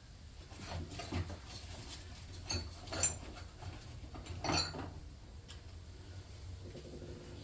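Small metal tools and parts being handled and set down, giving a few light metallic clinks, the two clearest about three and four and a half seconds in.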